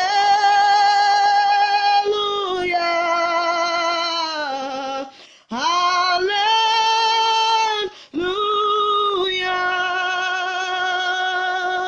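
A woman singing a worship song alone, holding long, wavering notes, with short pauses for breath about five and eight seconds in.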